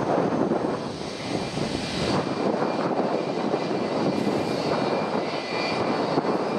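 Jet aircraft engine noise: a steady rush with a thin high whine on top that grows stronger in the second half.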